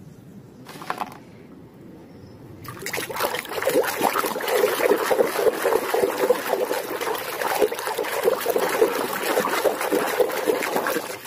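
Water splashing and sloshing as a hand stirs a pile of muddy plastic toy animals around in a plastic tub, a dense run of splashes that starts about three seconds in.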